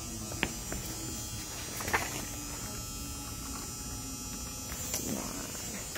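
Steady indoor background hum and buzz, with a couple of brief clicks or taps, the sharpest about two seconds in.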